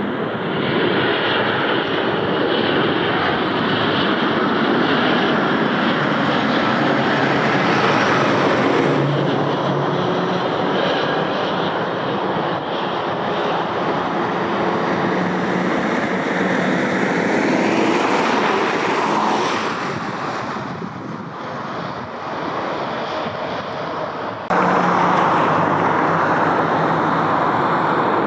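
Airliner engines running, loud and dense, with a steady hum under the noise. The sound changes abruptly twice, about nine seconds in and again about twenty-four seconds in, and is somewhat quieter just before the second change.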